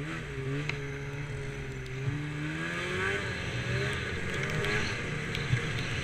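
Snowmobile engine running and picking up speed, its pitch rising over the first three seconds or so, then running on steadily.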